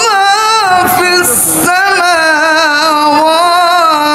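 A man reciting the Quran in the melodic, chanted tajweed style, amplified through a microphone, drawing out long wavering notes that glide between pitches. A short hiss breaks the line about a second in before the chant resumes.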